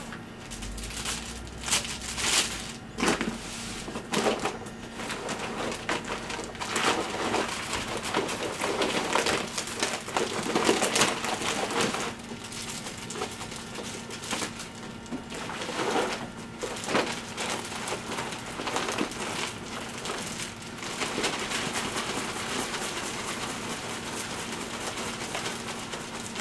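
Plastic bags crinkling and dry parrot food pellets rattling as they are scooped and poured from a large bag into smaller bags, with scattered knocks and clicks.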